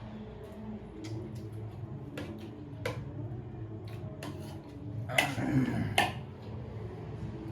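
People eating noodles: scattered light clicks of utensils against bowls, with a louder stretch of noise about five seconds in.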